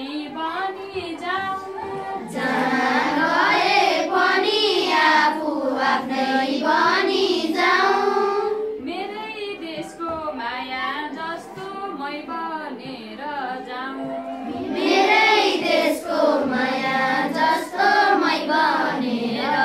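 A class of schoolchildren singing a Nepali poem together in unison. The singing swells louder about two seconds in, falls back at about nine seconds, and swells again near fifteen seconds.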